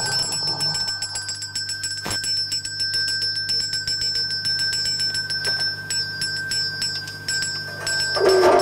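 A small bell rings with a steady, high tone over rapid, irregular clicking. Near the end a lower pitched sound with several tones comes in.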